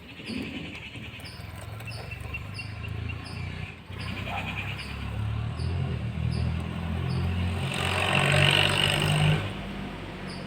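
Yamaha RX 100 motorcycle running with its rear drive chain turning, to show the newly fitted master link and clip in motion. A steady, low engine note gets louder about eight seconds in, then eases off about a second and a half later.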